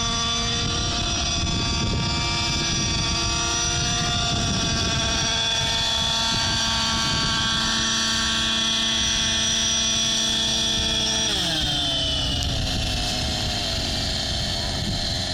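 Petrol-engined T-Rex 700 radio-controlled helicopter running steadily at high rotor speed, then about eleven seconds in its pitch falls as the engine and rotor wind down toward idle.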